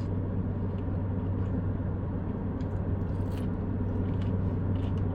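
Steady low hum of a car's idling engine heard inside the cabin, with a few faint chewing clicks.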